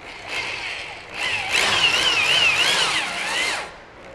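Power drill driving a #12 self-drilling hex head screw into wood through a caster's mounting plate: a short burst, then a longer run with a whine that wavers up and down as the screw bites, stopping once it seats.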